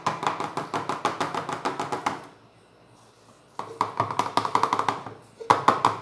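Soap mixture being stirred quickly in a small plastic pot, the utensil clicking and scraping against the plastic in rapid strokes. The stirring comes in three bouts: a long one at the start, a second after a short pause, and a brief one near the end.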